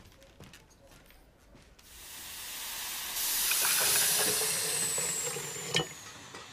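Hot water gushing from the metal tap of a steaming urn into an earthenware jug, with steam hissing. The hiss builds over a second or so, then fades, and a click comes near the end as the tap is shut.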